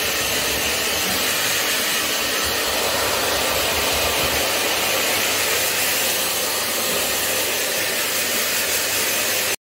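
Hand-held hair dryer blowing steadily on a wet dog's coat, then switched off suddenly at the end.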